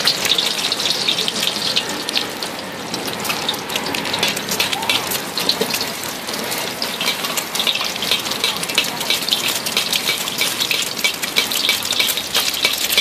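An egg frying in a pool of hot oil in a wok: a steady sizzle thick with fine, rapid crackling and popping.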